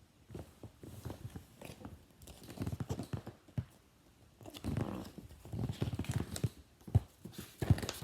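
Irregular soft knocks and clicks, handling noise, with a few sharper knocks near the end.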